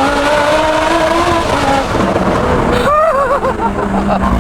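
Lamborghini Huracán STO's 5.2-litre V10, breathing through decat headers and a modified exhaust, pulling under load with its pitch rising for about two seconds. It then drops off, and the engine note wavers up and down in short swoops.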